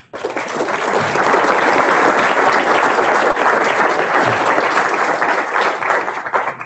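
Audience applauding, swelling within about a second and thinning to a few scattered claps near the end.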